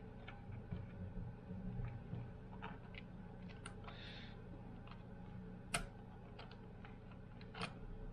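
Scattered light clicks and taps of small parts and tools being handled, the sharpest a single click near six seconds in, over a steady low hum.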